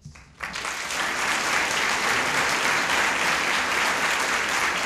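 Audience applause that starts about half a second in, builds quickly and then holds steady.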